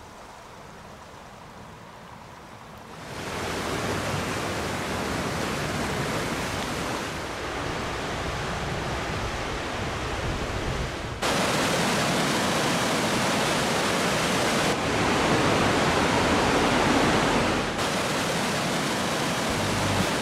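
Steady rushing of river water, in several takes cut together: it starts faint, jumps louder about three seconds in and changes again abruptly around eleven, fifteen and eighteen seconds.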